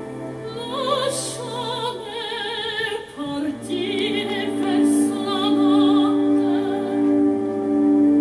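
Background music: an operatic voice singing long notes with wide vibrato over steady, held orchestral chords.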